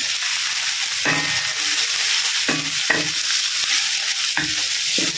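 Shallots, lemongrass and ginger sizzling steadily in hot oil in a wok as they are sautéed. A wooden spatula stirs them, scraping against the wok about five times.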